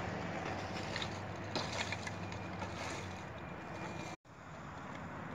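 Steady outdoor background noise, a rushing hum, with a few faint knocks about one to two seconds in. The sound cuts out for a moment about four seconds in.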